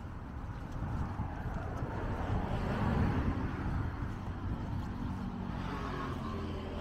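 A car passing by on the road. Its tyre and engine noise swells to a peak about three seconds in and then fades away.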